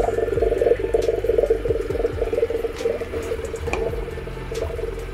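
A dense, steady chorus of frogs calling, many calls overlapping.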